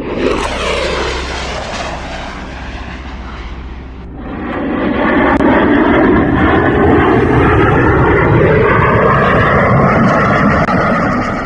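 Jet fighter engine noise. A passing jet falls in pitch over the first few seconds. About four seconds in there is a cut to a louder, steady jet engine sound with a slowly shifting whine.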